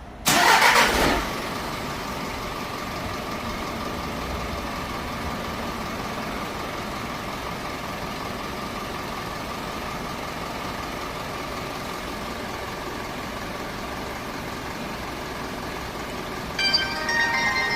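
A Hyundai All New Mighty truck's diesel engine, started remotely: a short loud burst of cranking as it catches, then steady idling. Near the end a short run of electronic tones sounds over the idle.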